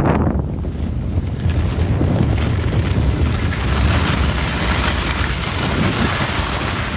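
Wind buffeting the microphone of a camera carried by a skier moving downhill, a steady low rumble. Over it, the hiss and scrape of skis carving turns on snow swells and fades.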